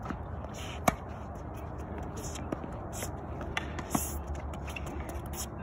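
Tennis ball struck by a racket in a baseline rally on a hard court: a sharp pop about a second in and another near the end, with fainter clicks of ball bounces and far-side hits between, and shoes scuffing the court.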